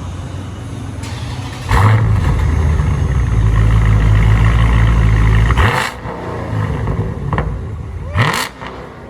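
Dodge Scat Pack's 392 HEMI V8 with its mid mufflers deleted, starting up about two seconds in with a sudden loud flare and running loud for about four seconds before settling back. A short rev near the end.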